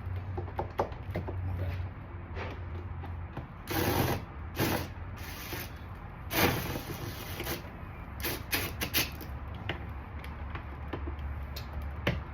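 Scattered scraping and rattling of hand tools and handling while 8mm screws are worked out of a car door panel, with the loudest bursts in the middle, over a steady low hum.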